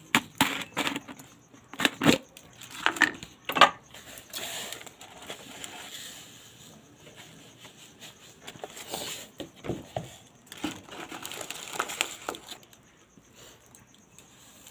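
Irregular knocks, clinks and scrapes of a plastic container and plate being handled as sugar is scooped out, with a cluster of sharp knocks in the first few seconds and scattered clicks after.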